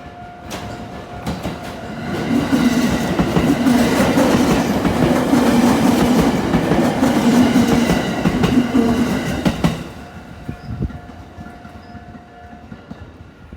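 Japanese level-crossing alarm ringing while a train passes over the crossing, the wheels clacking over the rail joints loudly for about eight seconds. The alarm rings on by itself for a few seconds after the train has gone, then stops.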